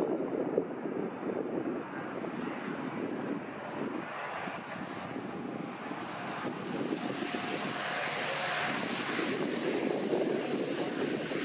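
Pilatus PC-12 NG's single turboprop engine and propeller running as the aircraft rolls along the runway past, growing louder and brighter as it draws level, about two-thirds of the way through.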